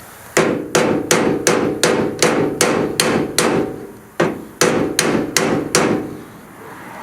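Steel hammer striking the Dana 44 differential carrier's cut bearing, fourteen ringing metal-on-metal blows in two runs of nine and five at about two and a half a second, to spread the cut and drive the carrier bearing off.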